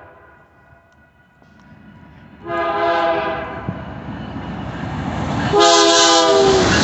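Diesel freight locomotive's multi-note air horn sounding two long blasts over the rising rumble of the approaching train: one about two and a half seconds in, and a louder one starting near the end as the locomotive draws alongside, its pitch dropping as it passes.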